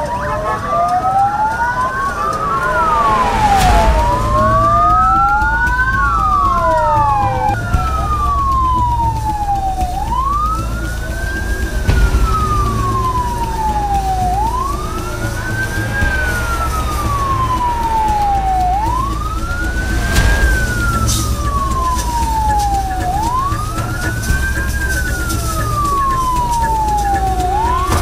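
Emergency vehicle sirens wailing over a low engine rumble. Two sirens overlap out of step at first; from about seven seconds in a single siren repeats a quick rise and slow fall roughly every four seconds.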